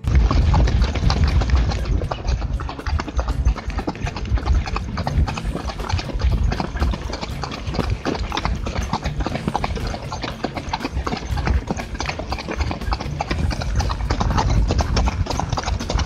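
Hoofbeats of a gaited Tennessee Walking Horse moving along a dirt trail, heard close from the saddle.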